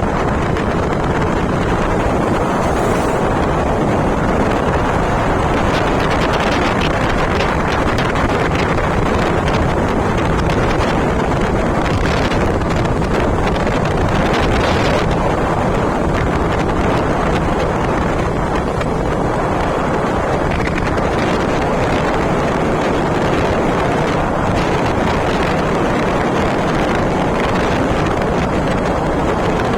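Wind rushing over the microphone on a moving vehicle, with a steady low engine hum underneath.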